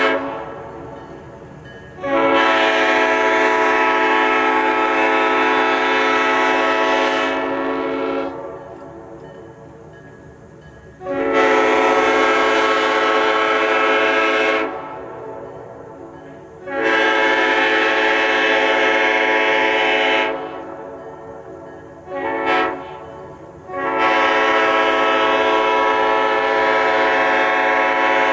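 Five-chime locomotive air horn on a GP30 sounding a chord in a series of long blasts of about four to six seconds each, with a short toot just before the last blast.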